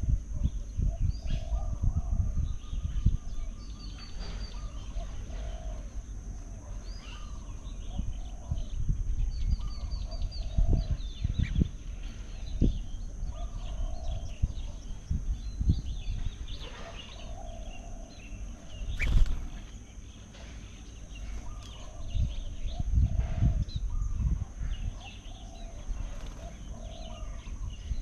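Birds calling and chirping outdoors: many short, high chirps from several birds, and a lower call repeated every second or two. Under them are low gusts of wind on the microphone and a steady high hum.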